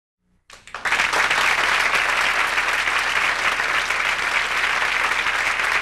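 Silence, then about half a second in a studio audience breaks into steady applause.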